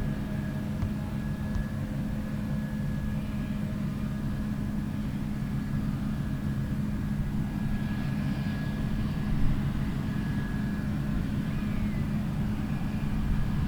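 Diesel engine of heavy harvest machinery running at a steady, unchanging drone.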